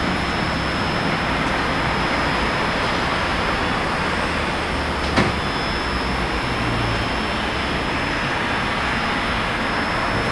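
Steady hum and hiss beside a stationary vintage tram, with a thin high whine held throughout and a single sharp click about five seconds in.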